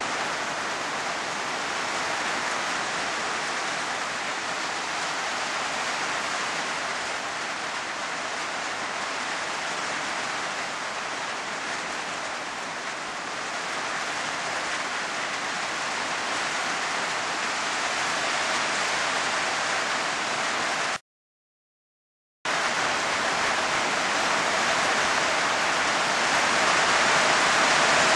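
Heavy downpour, a steady hiss of rain falling. The sound cuts out completely for about a second and a half two-thirds of the way through, then returns a little louder.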